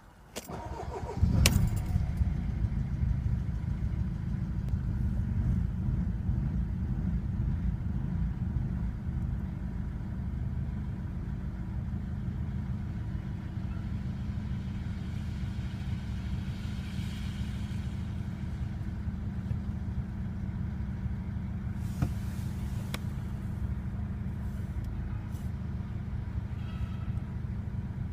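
Mercedes-Benz W210 E220 CDI's four-cylinder common-rail diesel starting about a second in, then idling. The idle is a little louder for the first several seconds before it settles. The owner's complaint about this engine is a rough idle.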